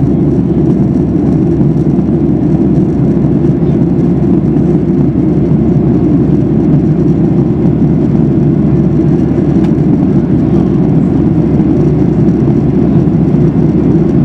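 Steady cabin roar of a Boeing 737-800 in flight, its CFM56-7B engines and the airflow heard from a passenger seat as a low, even rumble.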